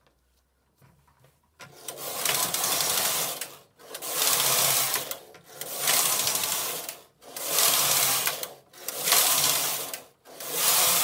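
Carriage of a Silver Reed punchcard knitting machine pushed back and forth across the metal needle bed, a rasping clatter of needles in about six passes of a second and a half each, starting nearly two seconds in.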